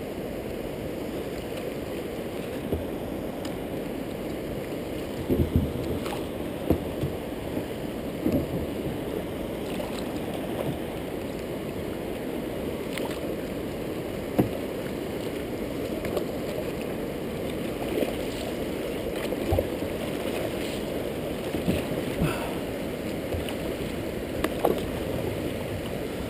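River water rushing and gurgling around a kayak, with scattered short knocks and splashes from paddle strokes against the water and hull.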